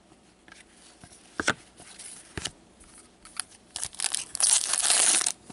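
A few light clicks as cards are handled, then from about four seconds in the foil wrapper of an SP Authentic hockey card pack being torn open and crinkled.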